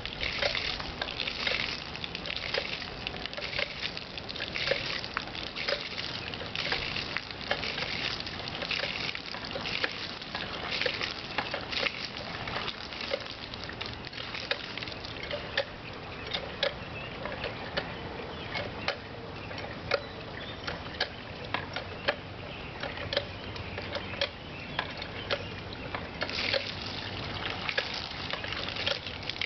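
Water gushing and splashing from the spout of a hand-worked Dempster No. 2 pitcher pump drawing from a well, coming in uneven surges with scattered short clicks. The pump is drawing water on its new leathers.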